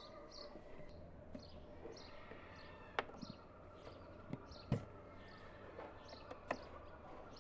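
Glass blender jar and lid being handled and set onto the base, giving a few light knocks, with birds chirping faintly in the background.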